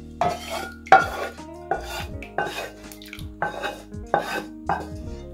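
A kitchen utensil scraping and knocking in a bowl in about seven repeated strokes, roughly two-thirds of a second apart, over background music.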